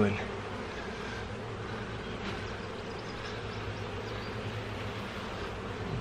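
Steady buzzing hum of a crowded honey bee colony in an opened hive box.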